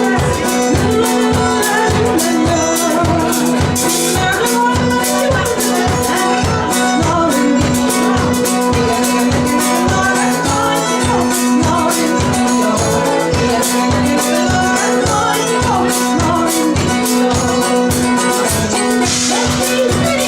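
Folk band playing an Irish folk song live: a steady low drum beat, a low note held under it, and melody lines on top.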